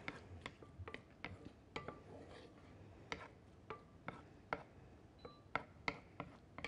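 Kitchen utensils clicking and clinking against cookware, an irregular string of sharp taps about every half second, a few with a short ringing note.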